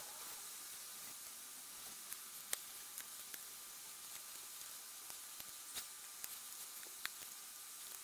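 Faint steady hiss with a scattered few light clicks and taps as small laser-cut MDF wheel parts are handled and set down.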